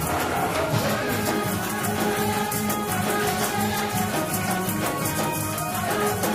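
Gospel shout music: Hammond organ and keyboards playing held chords over a fast, steady percussion beat.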